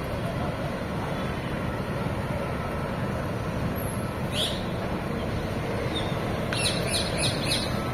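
Street traffic: a steady hum of cars moving slowly along the street, with a bird chirping once about four seconds in and a quick run of chirps near the end.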